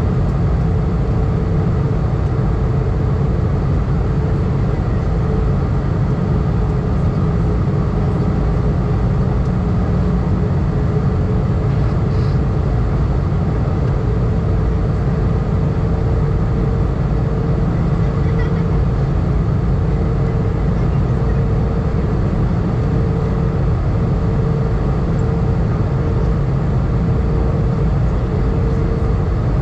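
Airbus A320 cabin noise in flight: a steady low rumble of engines and airflow, with a steady humming tone over it.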